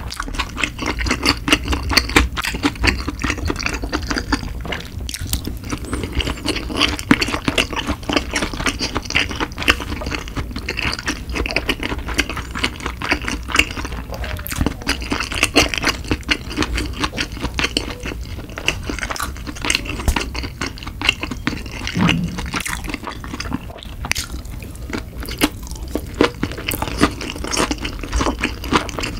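Close-miked chewing of nigiri sushi: a dense, steady stream of small wet mouth clicks and smacks.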